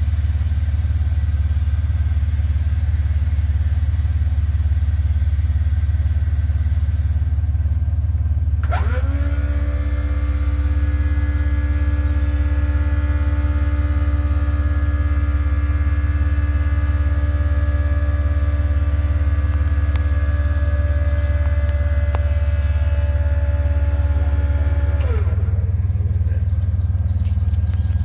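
Truck engine running steadily with a deep rumble. About a third of the way in, the electric pump of the tilting bed lift starts with a steady whine. It runs for roughly sixteen seconds and then cuts off.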